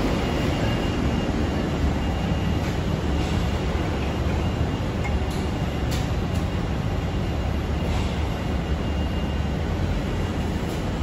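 Steady industrial machinery noise in a plastics factory: a loud, even low rumble with a hiss over it and a few faint clicks.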